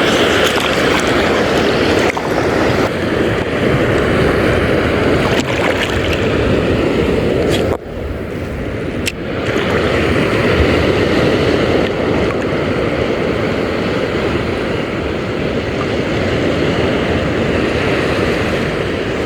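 Steady rush of wind and sea water around a small boat, with a short drop in the noise about eight seconds in.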